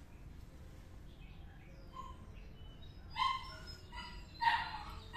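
Young kitten meowing: a couple of faint high mews about two seconds in, then louder high-pitched mews in the last two seconds, the loudest near the end.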